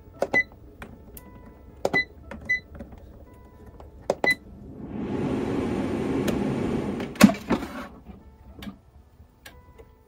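Xiaomi Mi Smart Air Fryer's touch panel beeping as it is set, four short high beeps. Then the fryer starts: a steady rushing of its fan for about three seconds, with a sharp click near the end.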